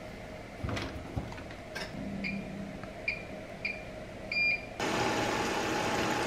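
Bosch front-loading washing machine: its control-panel buttons give four short, same-pitched beeps as they are pressed. About five seconds in, a steady rushing sound starts as the wash cycle begins and water runs into the drum.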